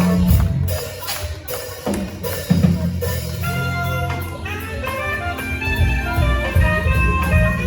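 Band music with a drum kit: a few sharp drum hits in the first three seconds, then several instruments playing held notes over a steady bass.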